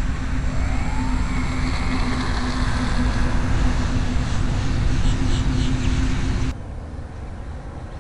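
Electric motor of an RC foam Corsair warplane model running with a whine, rising in pitch in the first second or two as it throttles up, under heavy wind noise on the microphone. About six and a half seconds in the sound cuts abruptly to a quieter steady hiss.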